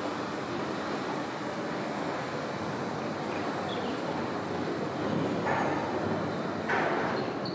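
Suspended monorail car running overhead as it pulls into a station: a steady rushing noise that swells twice near the end.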